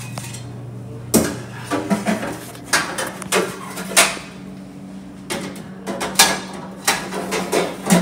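Stainless-steel parts of a CMA dishwasher, its removable screens and spray arms, clanking and rattling as they are fitted back inside the machine: a run of sharp metallic knocks that starts about a second in and continues irregularly. A steady low hum runs underneath.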